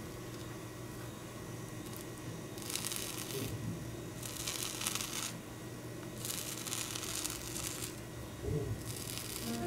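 A fork pressing and cutting into a fluffy baked omelette with a browned crust, giving four rustling, tearing sounds about a second long each.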